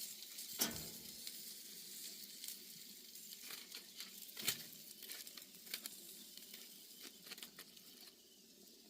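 Bratwursts sizzling faintly on a grill, with scattered pops and crackles of fat.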